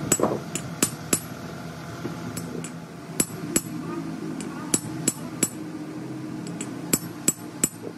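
A hammer strikes a steel drift over and over, driving a self-starter's bush bearing through a fixture on a steel block. The strikes are sharp, metallic and irregular, often coming in quick pairs, about fourteen in all.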